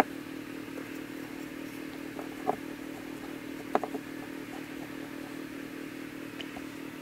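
Pine step blocks knocking against each other and on the wooden table as they are stacked and set down: a sharp click at the very start, one knock about two and a half seconds in and a couple more near four seconds. A steady low hum underneath.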